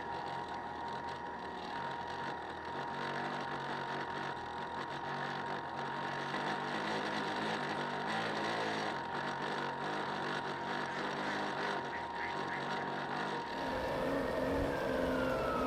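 Radio-controlled model boat's electric motor running steadily, with a constant high whine. Near the end the sound changes abruptly and a falling tone begins.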